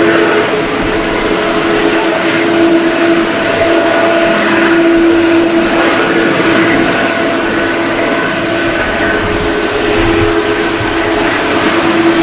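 Jet airliner engines, from a Boeing 737-800 on final approach to land and another airliner taxiing, running as a steady loud drone with a few held whining tones.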